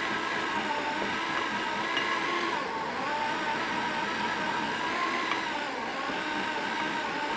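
Power drill running steadily, turning a Wondermill Junior grain mill through a drill-bit adapter and grinding the last of the peanuts in the hopper into peanut butter. Its whine sags slightly in pitch a couple of times.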